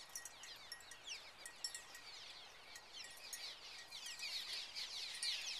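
A large flock of swallows calling as they swarm, a dense stream of overlapping short, high, falling chirps that grows louder near the end.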